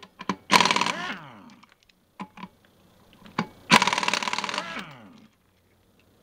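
Air impact wrench spinning loosened lug nuts off a wheel: two bursts of rapid rattling hammering, each about a second long, with the tool's whine falling in pitch as it winds down. A few light clicks come between the bursts.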